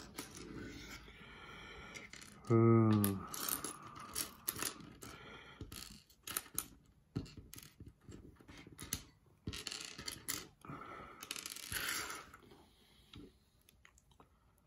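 Small plastic building-block pieces clicking and clattering as a minifigure is put together by hand, in irregular taps and snaps that die away about twelve seconds in.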